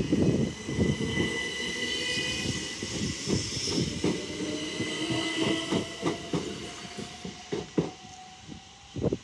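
Southeastern Class 375 electric multiple unit on the move: its wheels knock in quick succession over the rail joints and a whine rises slowly, with the sound loud at first and fading as the train draws away.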